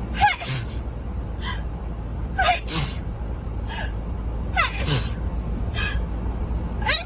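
A girl sneezing again and again. Each of about three strong sneezes, roughly two seconds apart, is led by a gasping breath in with a falling voiced "ah", and weaker sneezes or sniffs come in between.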